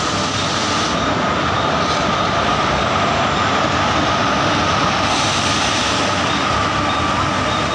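Express train passing at speed close to the platform: a loud, steady rumble of coach wheels on the rails, with a steady high tone running through it.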